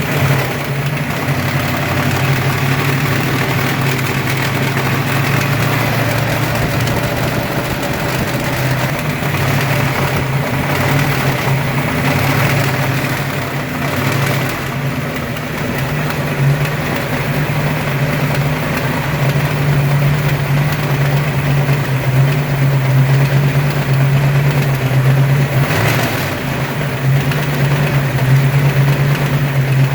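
Ford 302 (5.0 L) small-block V8 running steadily at idle with an unexplained mechanical noise in it. The owners cannot place the noise and guess at piston slap, a broken wrist pin or the timing chain. It is still there with the belts off and does not change when each plug wire is pulled.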